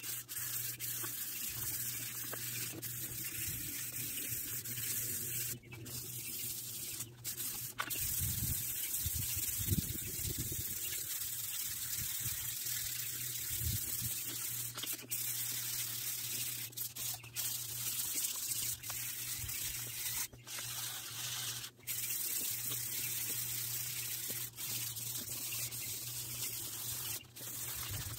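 400-grit sandpaper rubbed by hand along a bare metal string-trimmer shaft: a continuous scratchy hiss, broken by several brief pauses, over a steady low hum.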